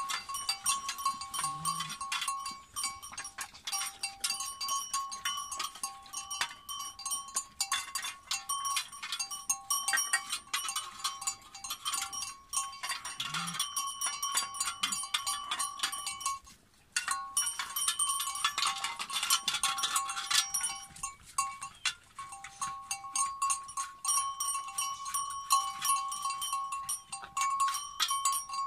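Two shepherd dogs lapping and chewing their food from metal bowls: a steady run of quick wet clicks and slurps, with now and then a clink of the bowl. A steady high ringing tone sounds underneath, with a short break about two-thirds of the way through.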